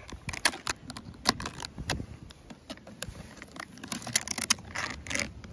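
Irregular clicks and rattles of metal wire ridge clips and plastic C9 light sockets being handled and pushed down onto a shingle roof ridge.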